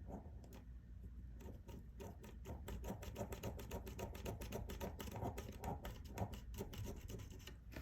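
Micro hand drill turning a 1 mm bit in a keyboard rivet hole of a MacBook Pro top case, enlarging the hole for a screw: faint, rapid clicking and scraping that quickens after about two seconds.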